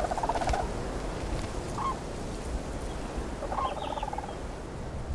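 Demoiselle cranes calling: a rattled, rolling call at the start, a short note about two seconds in, and another rattled call near the four-second mark, over a low steady rumble.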